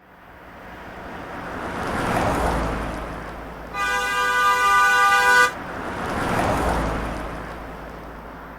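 City street traffic: vehicles passing with a rush that swells and fades twice, and a car horn honking once for nearly two seconds in the middle, the loudest sound.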